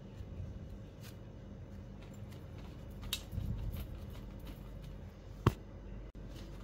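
A hand squeezing and pressing soft dough in a bowl: faint soft handling sounds and small clicks over a low steady hum, with one sharp click about five and a half seconds in.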